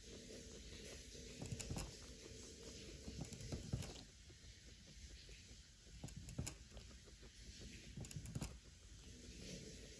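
Guinea pig drinking from a water bottle's metal sipper tube: faint, irregular clicks and taps of its teeth and tongue on the spout, a few of them louder.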